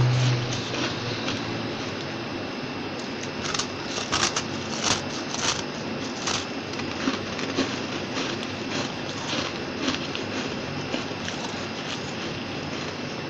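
Fluffy freezer frost crunching close to the microphone as a disc of it is bitten and chewed: irregular sharp crackles, thickest about four to six seconds in and thinning out later, over a steady hiss.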